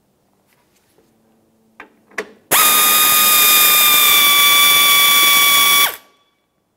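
Cordless electric ratchet spinning out a 10mm bolt with a steady high motor whine. It starts about two and a half seconds in after a couple of clicks, dips slightly in pitch midway, and cuts off sharply after about three and a half seconds.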